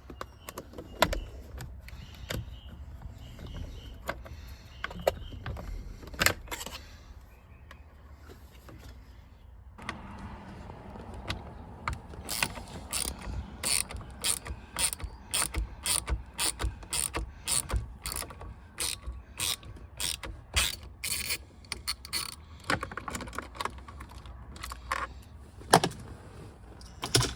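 Ratchet wrench clicking as the 10 mm bolts holding the steering-wheel airbag are backed out. A few scattered knocks come first, then from about ten seconds in a long run of quick clicks at about two a second.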